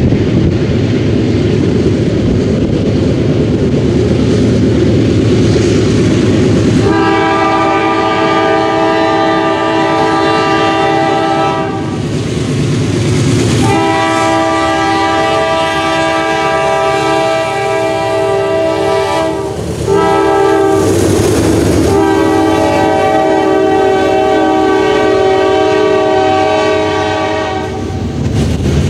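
Kansas City Southern diesel freight locomotive's multi-chime air horn, sounding three long blasts for the grade crossing as the train approaches and passes. Under and between the blasts the train rumbles, and its wheels clack on the rails as hopper cars roll by.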